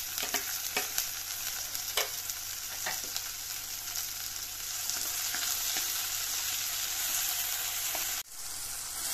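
Sliced onions and freshly added chopped tomatoes sizzling in hot oil in a clay pot, a steady hiss. A few light knocks come in the first three seconds, and the sound briefly drops out about eight seconds in.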